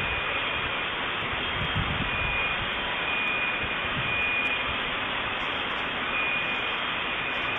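Steady rushing noise on a low-quality surveillance-camera recording of the street, with a faint high-pitched tone coming and going several times.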